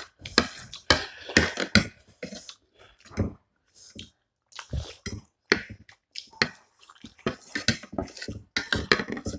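Two people eating soupy momos close to the microphone: wet chewing and mouth sounds mixed with spoons and forks clicking and scraping on ceramic plates, in quick irregular bursts that thin out for a couple of seconds in the middle.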